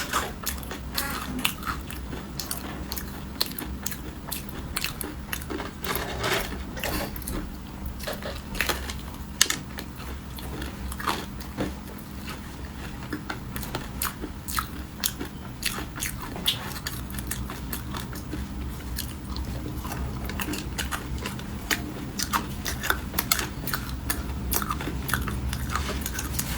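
Close-up eating of a crunchy snack: bites and chewing make a long, irregular run of crisp crunches and clicks.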